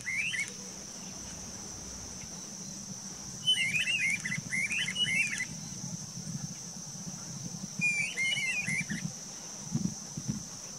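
Streamer-tailed tyrants calling in bursts of loud, sharp, arched notes: one short burst at the very start, a longer run of about three phrases from about three and a half seconds in, and another burst around eight seconds. A steady high insect drone runs underneath.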